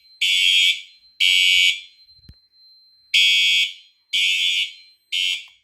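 Siemens U-MMT ceiling horn strobe sounding a temporal-3 (Code 3) evacuation pattern: three half-second horn blasts, a pause, then three more, the last one cut short near the end as the alarm is silenced. A faint steady high tone carries on between the blasts.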